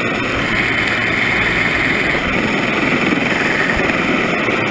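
Rescue helicopter hovering low overhead: steady, loud rotor and engine noise.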